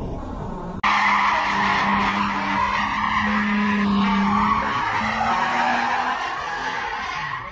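Car tyres squealing in a long skid, with a steady engine note underneath. It starts abruptly about a second in and cuts off at the end.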